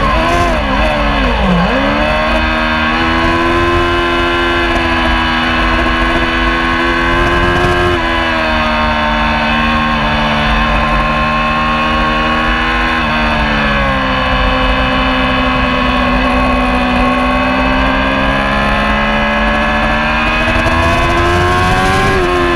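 Racing motorcycle engine at speed, heard from an onboard camera over rushing wind. Its note dips and wobbles in the first two seconds, holds fairly steady, steps down at about 8 and 13 seconds, then climbs slowly.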